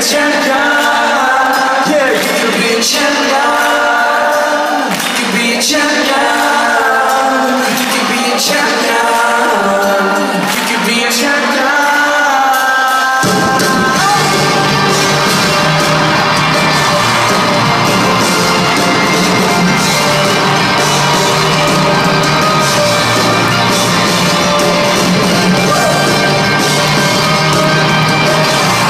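Rock band playing live in an arena, heard from among the crowd, with loud singing and crowd voices. For the first dozen seconds the singing carries over light accompaniment, then the bass and full band come in and play on.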